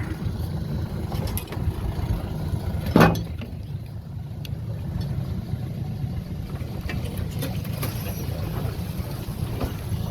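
Small boat's outboard motor running steadily at low speed, with a single sharp knock about three seconds in.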